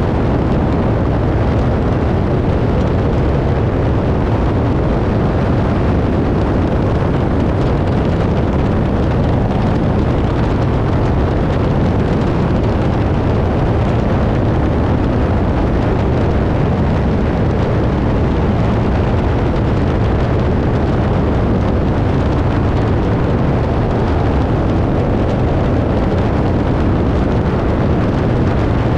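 Biplane in flight: engine and propeller running steadily, mixed with wind rushing over a tail-mounted camera's microphone, with no change in level throughout.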